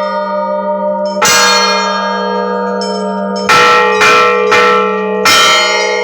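Russian Orthodox church bells ringing, with a steady low hum from a large bell throughout. Smaller bells are struck five times, the last four in quick succession from about halfway through, each strike ringing on.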